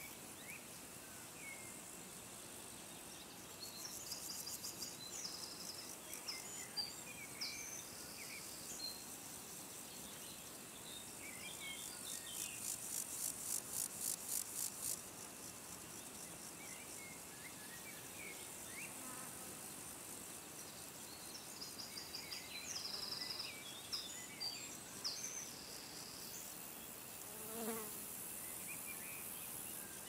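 Insects chirping in short, high-pitched trains over faint outdoor hiss, with a longer evenly pulsed run of chirps about halfway through.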